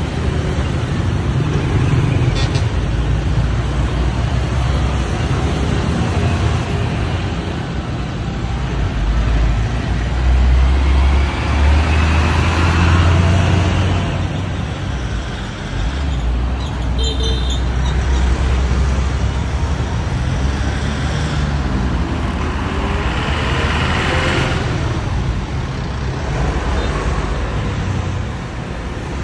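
Busy street traffic: a steady stream of motorbikes and other vehicles passing close by, with a heavy low engine rumble swelling and fading about halfway through. A short high horn beep sounds a little past the middle.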